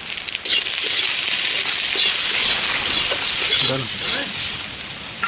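Cluster beans (gwar phali) sizzling in hot oil with onions in a steel kadhai. The loud sizzle starts suddenly about half a second in, as the wet beans meet the oil, with clinks of a metal spatula on the pan, and it eases off near the end.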